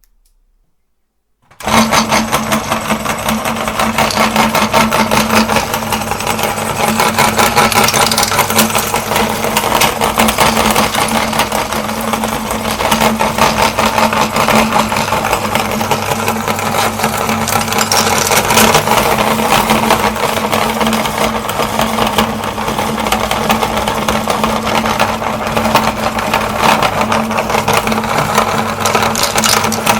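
Electric meat grinder switched on about a second and a half in, its motor then running steadily with a constant hum under a busy, rapid rattle.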